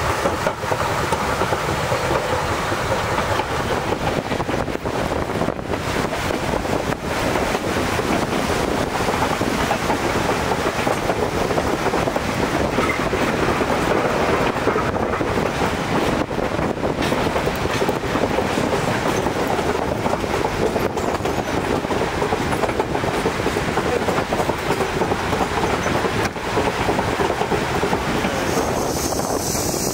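Durango & Silverton narrow-gauge steam train running steadily, its cars rumbling and clattering along the track.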